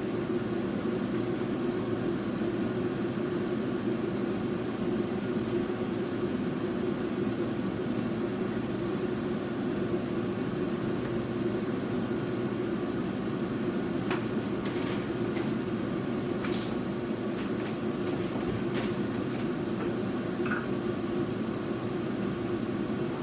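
Steady low hum of a running motor, such as a fan or appliance, with a few light clicks and taps about two-thirds of the way through.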